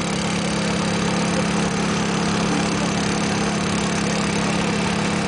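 Small petrol engine of a portable drilling rig running steadily at an even, unchanging speed, a constant low hum.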